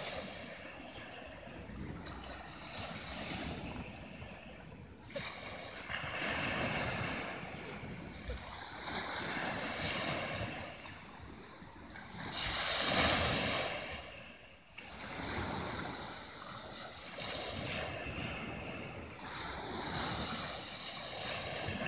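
Sea waves breaking and washing onto the shore, the surf swelling and falling back every three to four seconds, with one louder wave a little past the middle.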